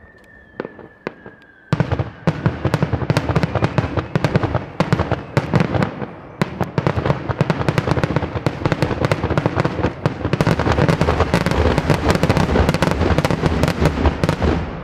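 Daytime fireworks: a faint whistle falling slightly in pitch, then, about two seconds in, a dense, rapid barrage of bangs and crackling reports that goes on without a pause.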